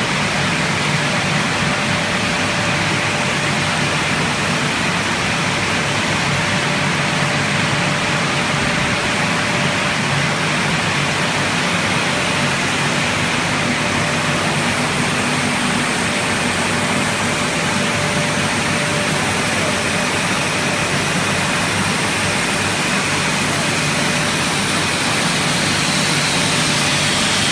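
PE and wood-plastic granulating line running: a steady, even machinery noise of motors and drives, with a thin steady whine running through it.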